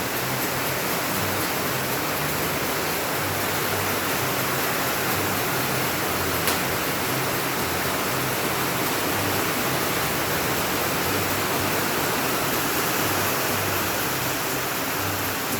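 Steady rain falling, an even hiss throughout, with a single sharp tick about six and a half seconds in.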